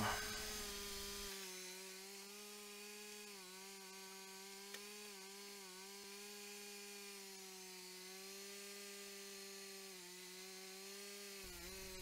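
Band sawmill's 35 hp gas engine running steadily while the band blade saws through a log, heard faintly as a steady drone whose pitch dips briefly a few times.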